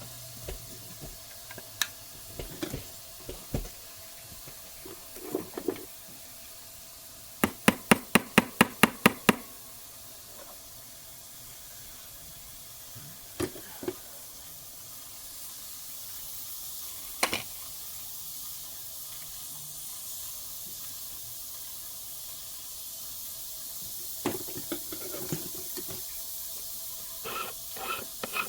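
Workbench knocks and sharp taps: a quick run of about nine taps, roughly five a second, a third of the way in, with scattered single knocks before and after, over a steady faint hiss and a low hum.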